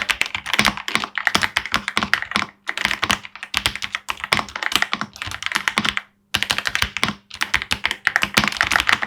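Typing on a Ganss GS3108T Pro full-size mechanical keyboard: a rapid, dense run of keystrokes with a few brief pauses.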